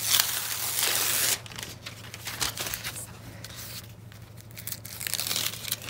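Paper release backing of Flexi Fuse fusible being peeled off laser-cut appliqué fabric: a loud ripping rasp for about the first second and a half, then quieter crinkling and crackling of the paper, picking up again near the end.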